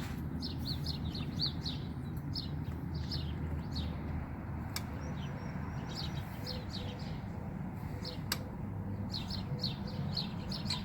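A bird chirping in quick runs of short, high, downward-sliding notes, about five a second, pausing for a couple of seconds midway. A steady low rumble runs underneath, and there are two sharp clicks, one about halfway and one near the end.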